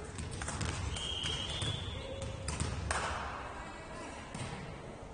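Ball game in a sports hall: a ball thumping and bouncing amid footfalls and players' calls, with one hard ball strike about three seconds in and a brief high-pitched tone about a second in.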